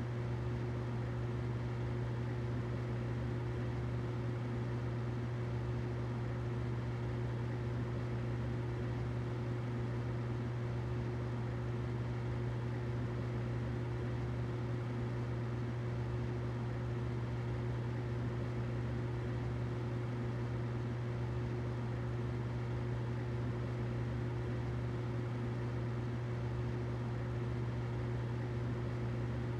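Humidifier running steadily: a constant low hum with a fainter higher tone above it, over a soft even hiss.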